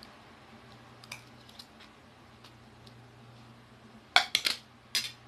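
Spoon and fork clinking lightly against a plate a few times, then a quick run of louder sharp clatters about four seconds in and one more near the end.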